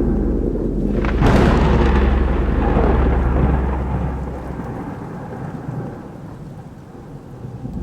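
A thunderclap: a sudden sharp crack about a second in, then a long rumble that dies away over several seconds, over a low steady drone that drops out partway through.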